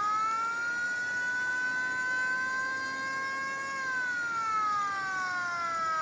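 Recording of a World War II Japanese air raid siren played back: a wailing tone that rises in pitch, holds high for about three seconds, then falls over the last two seconds.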